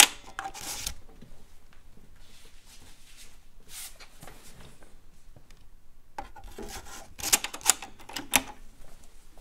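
A 5.25-inch floppy disk slid into a Teac FD-55GFR drive and the drive's door lever turned: sharp plastic clicks at the start, then a short scraping slide. A second cluster of sharp clicks comes about seven to eight seconds in as the lever is handled again.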